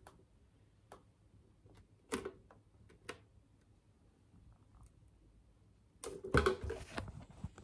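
Hands handling a plastic blender jar: a few light clicks and taps, then about six seconds in a louder burst of knocking and rubbing lasting about a second and a half.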